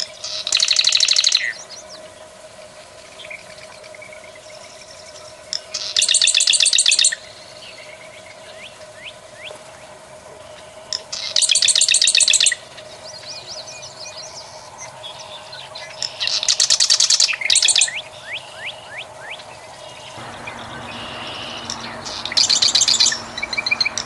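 Marsh wren singing: five rapid, rattling trills about a second long, coming roughly every five seconds, with faint short chirps between them.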